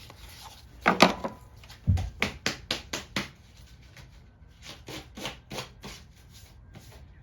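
Hands handling and fitting a lawn mower's air filter into its housing: a few sharp knocks, then a quick run of knocks and rubs at about four a second, and a few more near the end.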